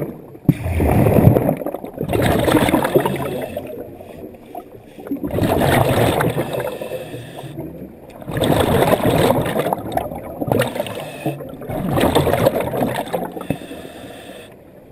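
Scuba diver's breathing heard underwater: a burst of exhaled bubbles rushing and gurgling out of the regulator about every three seconds, five times, with the quieter inhalations between.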